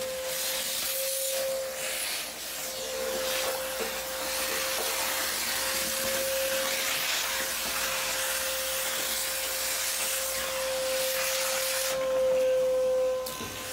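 Vacuum cleaner running with a steady whine and rushing hiss as its corrugated hose sucks dirt and debris off a car's bare metal floor pan; it gets briefly louder near the end.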